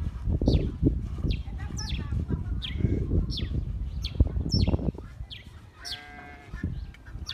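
A bird repeating a short, sharply falling chirp about twice a second, over low rumbling noise that drops away after about five seconds. Near six seconds in there is a brief animal call, such as a bleat.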